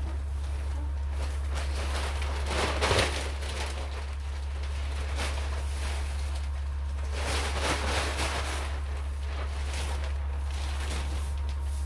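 Dry hay rustling and swishing as it is spread by hand over the coop floor, in several broad swishes, the loudest about three seconds in, over a steady low hum.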